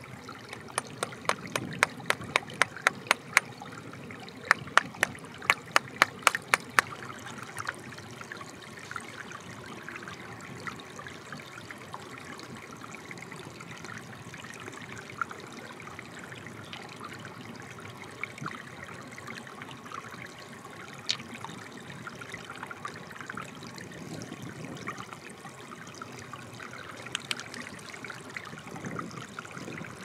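Shallow stream water trickling steadily over rocks, with two runs of sharp hard taps, about three a second, in the first seven seconds and a few single taps later, as a sandy crust is knocked off a stone by hand.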